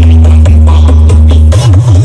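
Electronic dance music played very loud through a miniature sound system of 12-inch woofers during a sound check. A heavy held bass note gives way to a bass that wobbles up and down in pitch about one and a half seconds in.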